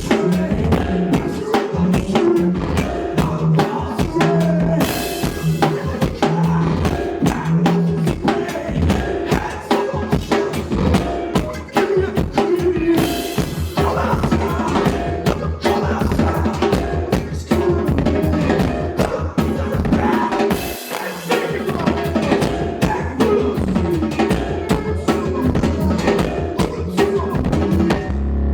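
A live band playing a fast, drum-heavy piece: busy drum kit with bass drum, snare and rimshots over a stepping bass line, with cymbal crashes three times. The music stops suddenly at the very end.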